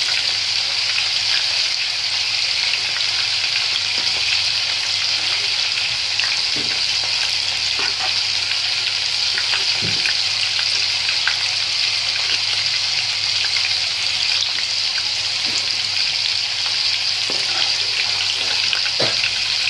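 Battered fish pieces deep-frying in hot oil make a steady sizzle. A few faint knocks come through it as a slotted spoon touches the pan while turning and lifting out the fried pieces.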